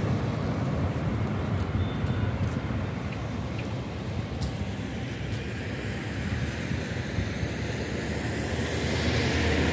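Steady road traffic noise from vehicles passing on the bridge roadway, growing a little louder near the end.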